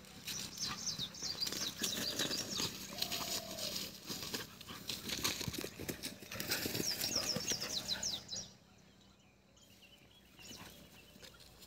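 Two dogs play-fighting on grass and dry leaves: scuffling, rustling and quick paw steps for about eight seconds, after which it drops to a much quieter stretch.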